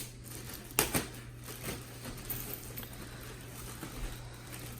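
Packaging being handled: rustling and small knocks, with two sharp louder rustles close together about a second in, over a steady low hum.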